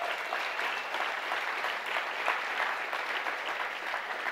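Audience applauding: many hands clapping in a dense, steady patter that eases slightly near the end.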